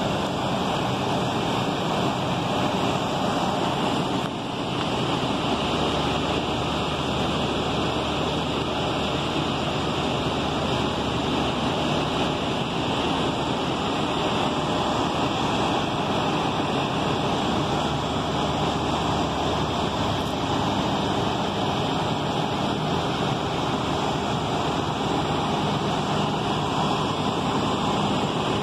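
Steady rushing street noise from a line of parked hybrid transit buses idling, with wind on the microphone.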